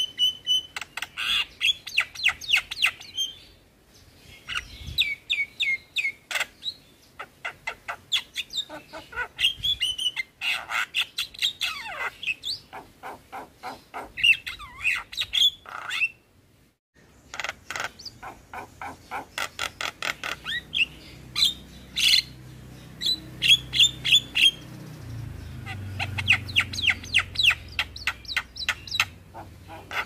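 Javan myna (jalak kebo) singing in full voice: long runs of rapid, repeated sharp chattering notes and whistles, with a brief pause about halfway through.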